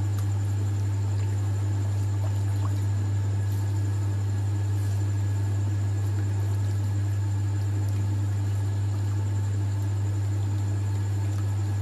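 Steady low hum from a running appliance, with faint scraping as a wooden spatula stirs thickening sauce in a wok.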